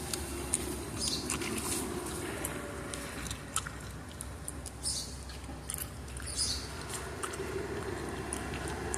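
House sparrow giving short, high chirps every second or few, with light taps and scratches in between.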